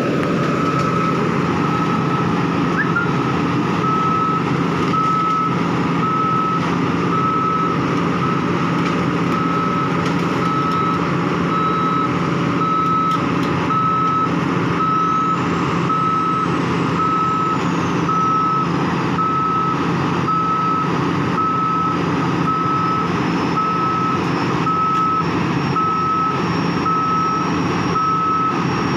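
Heavy construction machine's reversing alarm beeping steadily, about one beep a second, over the steady running of a diesel engine.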